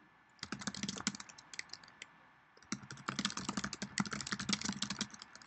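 Typing on a computer keyboard: a short run of keystrokes, a pause of about a second and a half, then a longer, denser run of keystrokes.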